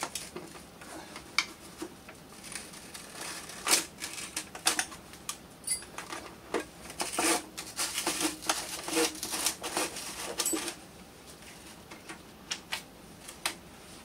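Irregular clicks, taps and light knocks of hands working an electric unicycle's battery pack and plastic shell into place over the wheel. The clicking comes thickest in the middle stretch.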